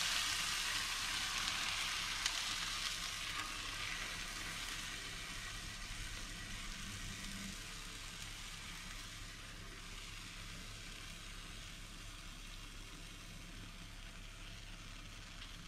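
Beaten egg mixture sizzling as it is poured into a hot frying pan of sautéed mushrooms and spinach. The sizzle is loudest at first and fades steadily over the first several seconds, then settles to a soft, even sizzle.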